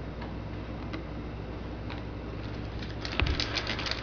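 Trading-card handling over a low steady hum: a few faint clicks, then about three seconds in a soft thump and a run of crinkling, like a foil card pack being torn open.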